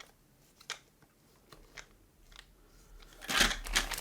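Packaging being handled: a few scattered small clicks, then a louder burst of crinkling about three seconds in, as a bag of rolled-pin IC sockets is unpacked.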